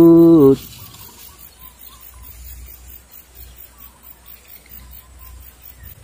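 Quiet open-air background of marshy grassland: a low rumble of wind on the microphone and a few faint, short chirps.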